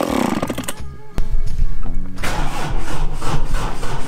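An old two-stroke chainsaw, just started after five years unused, running and revving; it cuts off abruptly under a second in. A few seconds of brief music follow, then a low engine rumble starts about a second in and keeps running.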